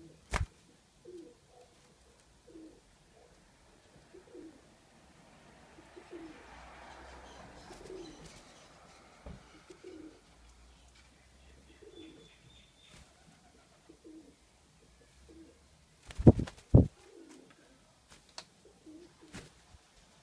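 Spotted dove giving short, low coos over and over, about one every second or so, the calling of an agitated, angry bird. A sharp knock comes just after the start, and two loud thumps close together come about three-quarters of the way through.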